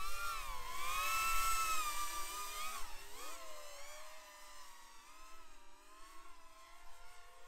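FPV racing quadcopter's brushless motors whining, their pitch rising and falling with the throttle. Loudest in the first three seconds, then quieter.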